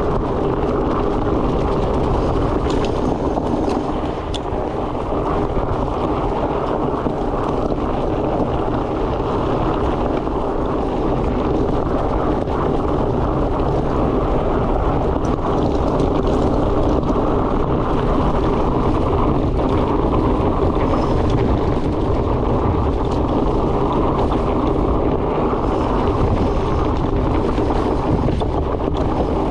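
Steady rush of wind on a helmet or bike-mounted camera's microphone, mixed with the rumble of a fat bike's tyres rolling along the trail, with a few faint clicks.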